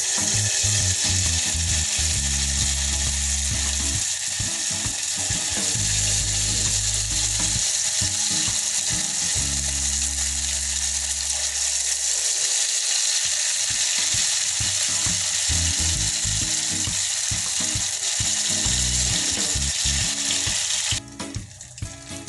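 Egg chip batter, chilled with crushed ice, deep-frying in a pan of hot oil with a loud, steady crackling sizzle that cuts off about a second before the end. Background music with low notes plays underneath.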